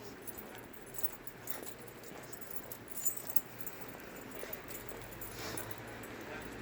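Dog on a leash, faint whimpering, with a light metallic jingle of collar tags and a few scattered clicks.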